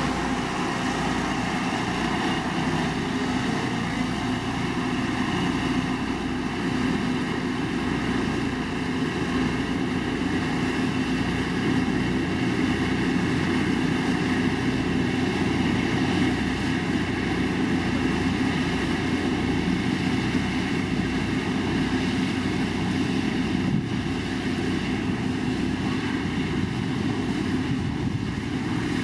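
Heavy diesel road-building machine, such as a motor grader or road roller, running steadily: a constant engine drone that holds the same pitch and level throughout.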